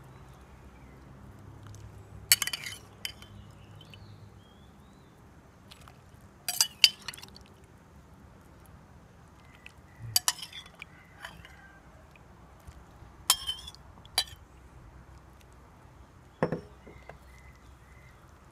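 A metal spoon clinking against a ceramic bowl and a steel pot every few seconds as pickled mustard greens are scooped into boiling soup, with a soft steady noise of the boiling pot underneath.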